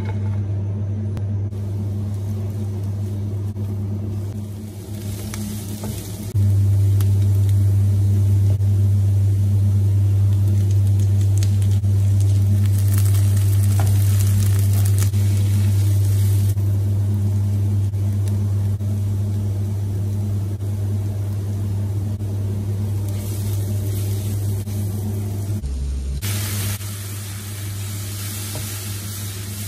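Sliced onions and green chillies frying in hot oil in a non-stick pan, a soft sizzle. Under it runs a steady low hum, the loudest sound, which grows louder a few seconds in and eases back near the end.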